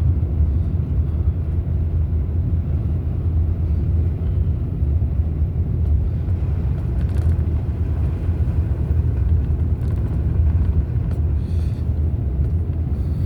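Steady low rumble of a four-wheel-drive vehicle driving slowly, heard from inside the cabin: engine and road noise.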